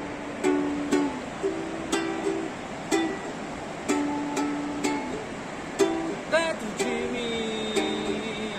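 Background music: an acoustic song led by a plucked-string instrument sounding a chord about once a second, with a short sliding note about six seconds in.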